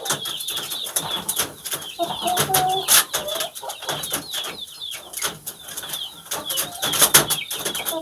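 Chickens around wire cages: a few short mid-pitched calls, a steady background of high chirping, and many clicks and knocks, the sharpest about three and seven seconds in.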